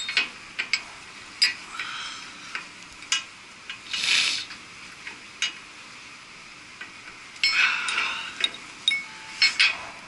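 Steel lifting shackles and a shackle pin clinking and scraping against the gearbox's steel mount as gloved hands fit them to its bolt holes. Scattered sharp clinks, with a longer scrape about four seconds in and another a little before eight seconds.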